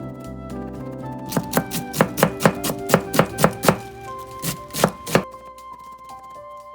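Kitchen knife chopping on a cutting board: a quick run of about ten even strokes, roughly four a second, then a few more strokes a second later, over gentle background music.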